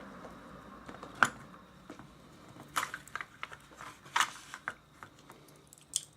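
Irregular small metallic clicks and rattles of a padlock and bent bobby-pin picks being handled. The sharpest click comes about a second in, with short clusters of clicks near the middle and near the end.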